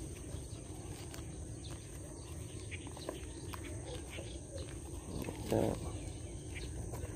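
Wind buffeting the microphone in a steady low rumble, with light rustling and one brief louder scuff about five and a half seconds in.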